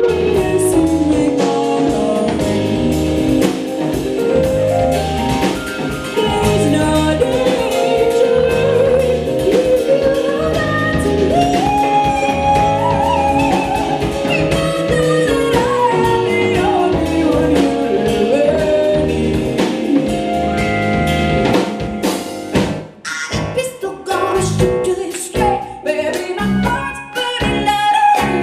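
Live band music with drum kit under a gliding lead melody that is sung without clear words. In the last several seconds the band plays short stop-time hits with brief gaps between them.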